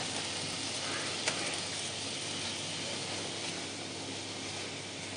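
Spiced onion, pea and potato mixture frying gently in a pan on low heat: a low, steady sizzle, with one light tap about a second in.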